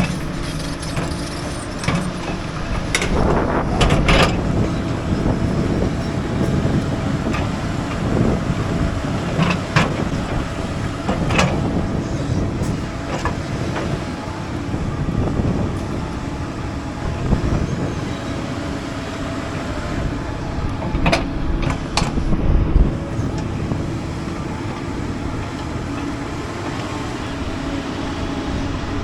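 Doosan excavator's diesel engine working steadily under load while it digs, with occasional sharp knocks and clanks from the bucket and rock.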